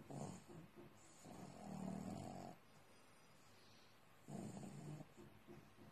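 Pug snoring in its sleep: rasping snores a few seconds apart, the longest about a second in, with a soft fluttering rattle between them.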